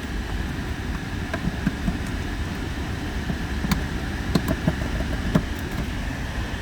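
Steady hum of a car cabin's ventilation fan, with a handful of short clicks and taps scattered through it as buttons are pressed and a plug-in control device is handled.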